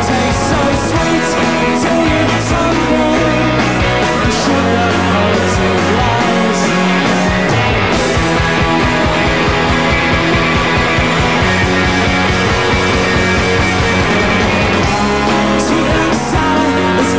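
Britpop band playing live, from an FM broadcast recording: full-band rock music with a steady beat. The high cymbal strokes thin out about halfway through and come back near the end.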